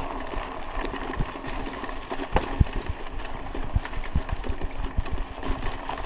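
Mountain bike rolling over a bumpy dirt road: a steady rumble of tyres on the gravel with irregular knocks and rattles from the bike jolting over ruts.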